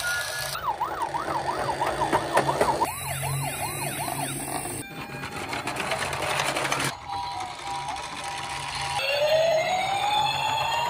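Toy police cars' electronic siren sound effects, one after another: a fast yelping siren, a rougher noisy stretch, a steady two-tone, and near the end a rising wail. A low steady hum runs underneath.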